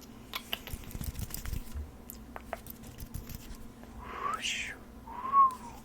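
Folding hand fan being handled close up: a run of light clicks and taps, then a rising swish of air as it is swept. About a second before the end comes a short high whistle-like tone, the loudest sound here.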